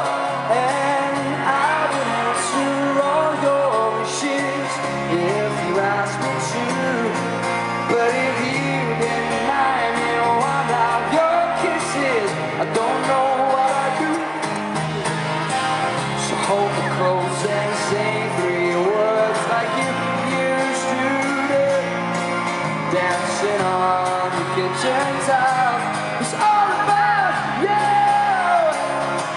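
Live pop-rock band playing, with acoustic guitar, bass guitar and drums under sung vocals.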